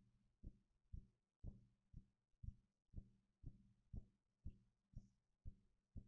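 Faint, regular low thumping, about two beats a second, like a background drum or heartbeat, over a steady low hum.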